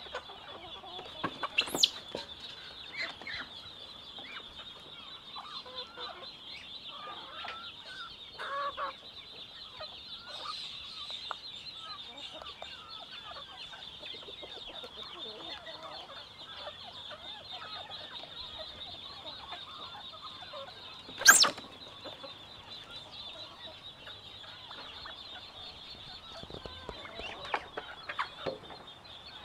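Chickens clucking around a yard over a steady high-pitched drone. One sudden, sharp, loud sound comes about two-thirds of the way through.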